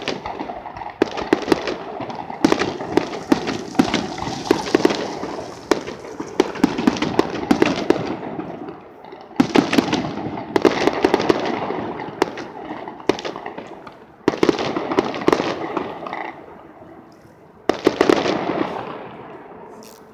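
Fireworks display going off in rapid volleys of sharp bangs and crackle. Each volley dies away before the next barrage starts, with fresh ones about a second in, around the middle, and near the end.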